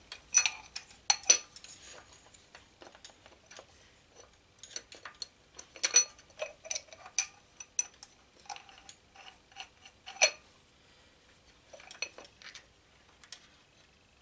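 Metal on metal: a steel intake adapter plate being fitted over the bolts at a motorcycle cylinder head's intake port, giving irregular clinks, clicks and light scrapes in bursts, with a louder knock about ten seconds in.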